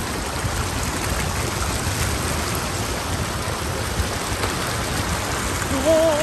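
Steady rushing water noise with no pause or change. Near the end a short wavering pitched call cuts in, briefly louder than the water.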